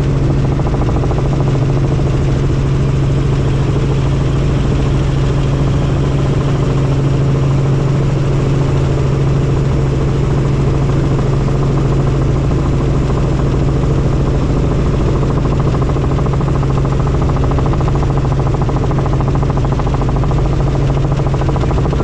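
Helicopter in flight: a steady, unchanging rotor and engine drone with a strong low hum.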